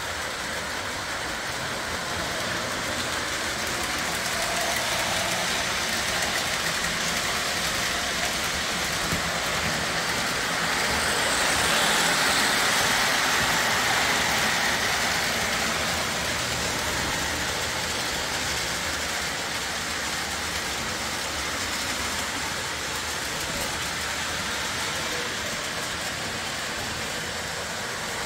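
Toy electric train running on its track, a steady rushing run of motor and wheel noise that grows louder about twelve seconds in as it comes closest, then eases off.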